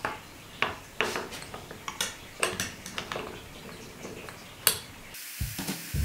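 Irregular sharp metal clinks and taps, about a dozen over five seconds, as a large steel hex nut is handled and set into the jaws of a small metal vise. The loudest clink comes shortly before the sound cuts off abruptly.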